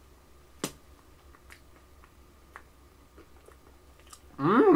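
Quiet eating sounds: a sharp click about half a second in, then a few faint ticks from a plastic spoon and mouth while ice cream cake is eaten. A short vocal sound with a wavering pitch comes near the end.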